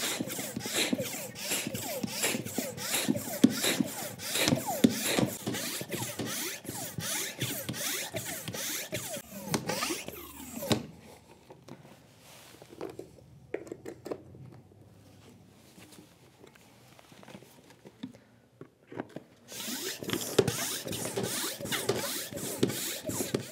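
High-volume hand pump inflating an inflatable kayak's air chamber through its one-way valve: a quick, even rhythm of air rushes with each stroke. The pumping stops about ten seconds in, leaving a few small clicks and handling sounds, and starts again near the end.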